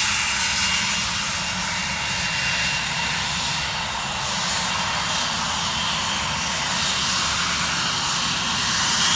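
Private jet's engines running steadily: an even rushing noise with a thin, steady high whine.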